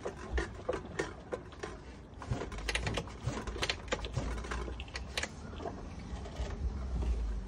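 Irregular clicks and knocks, two or three a second, from hands working on a Suzuki RM85 dirt bike before its engine is started, with a low rumble from about two and a half seconds in.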